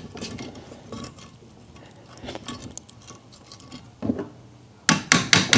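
Bolt and steel bracket parts of a mower chute blocker being handled, with faint small metal clicks and rubbing as they are lined up, then a quick run of sharp metallic clicks near the end.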